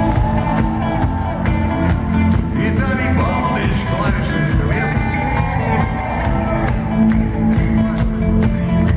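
Rock band playing live, drums keeping a steady beat under a gliding melody line.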